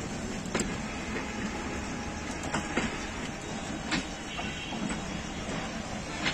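Intercity passenger train coaches rolling slowly past: a steady rumble of the wheels on the track, broken by irregular sharp clicks and knocks.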